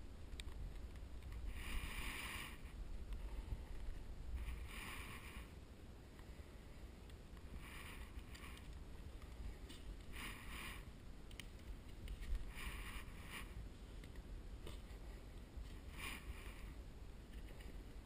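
Utility knife cutting into a cracked drywall ceiling tape joint, in six short rasping strokes about every three seconds.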